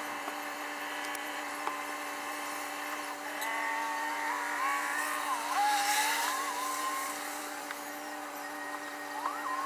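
A squeegee squeaking across the wet windshield glass of a box truck, heard from inside the cab: a wavering squeal for a few seconds in the middle and again briefly near the end. Under it runs a steady hum in the cab.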